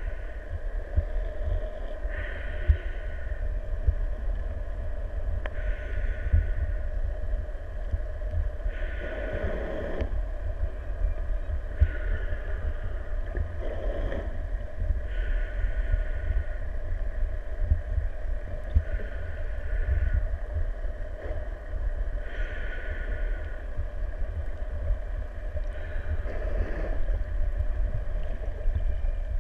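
Underwater ambience picked up by a submerged camera: a constant low rumble of water moving around the housing, with softer hissing surges every three to four seconds.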